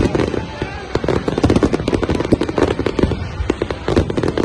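Aerial fireworks display going off in a dense barrage: many overlapping bangs and crackles, several a second.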